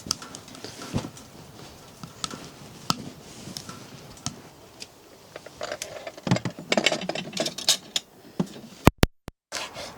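Scattered clicks, taps and rustling of small objects being handled, clattering more busily in the second half, broken by a sudden brief gap of silence near the end.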